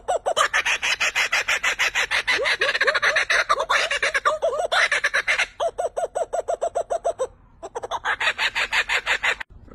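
Laughing kookaburra laughing: a fast, steady run of chuckling notes, about ten a second, with a short break near the end.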